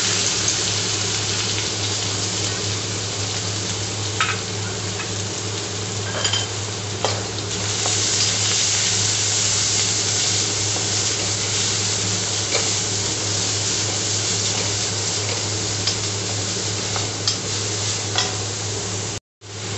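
Chopped onions sizzling as they fry in hot oil in an aluminium kadhai, stirred with a wooden spatula that knocks against the pan now and then. A steady low hum runs underneath, and the sound cuts out briefly near the end.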